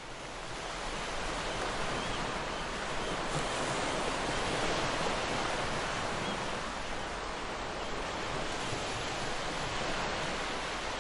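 Ocean surf: waves breaking and washing up on a sandy beach as a steady rushing noise, fading up at the start.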